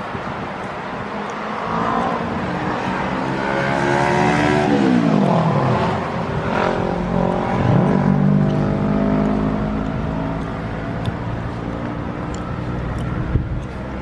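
Road traffic: motor vehicle engines passing. One engine note drops in pitch about four and a half seconds in, and another rises as a vehicle accelerates about two seconds later.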